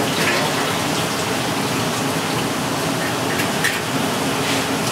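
Steady sizzling hiss of skewered eel grilling over a charcoal grill, with a few faint clinks of metal skewers.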